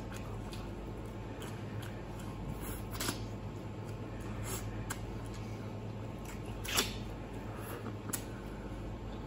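Close-up mouth sounds of a person eating soy-braised pork bones by hand: wet chewing with scattered lip smacks and sucks, the loudest about seven seconds in, over a steady low hum.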